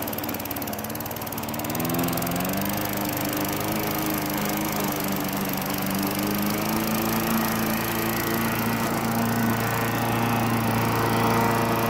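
Poulan Pro push mower's single-cylinder Briggs & Stratton engine running under load in tall, wet grass. Its pitch sags in the first second, picks back up by about two seconds in, then holds steady.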